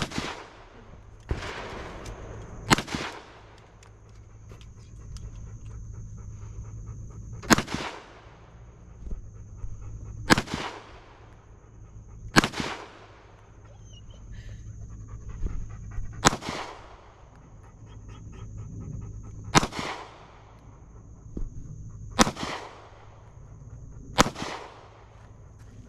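A series of about nine gunshots, one to four seconds apart, each with an echoing tail. A dog pants between the shots.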